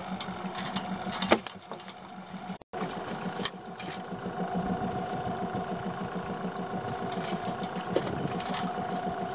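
Small boat outboard motor idling steadily with a fast, even pulse, plus a sharp knock about a second in. The sound cuts out for an instant between two and three seconds in.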